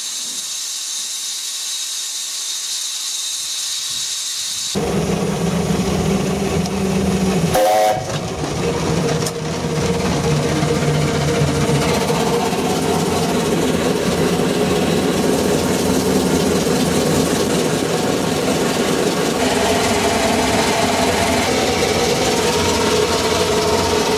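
A pressure washer sprays with a steady high hiss. After about five seconds it cuts to the steady running noise of a Sentinel steam waggon on the move, heard from inside its cab, with a short pitched sound about eight seconds in.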